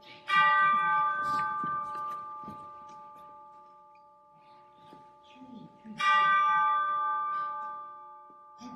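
A bell struck twice, about six seconds apart. Each strike rings on with several steady tones that fade away slowly.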